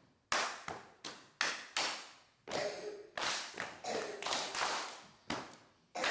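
Hand claps and body-percussion slaps beaten out as a rhythm, a group copying a leader's pattern: sharp strikes about three a second, with a few longer strokes around the middle.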